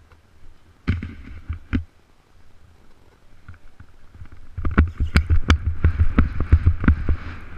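Horse's hooves striking the sand arena floor, heard from a camera mounted on the horse: a few hoofbeats about a second in, then a fast run of hoofbeats, about four a second, from about two-thirds of the way through, as the horse gallops through the poles.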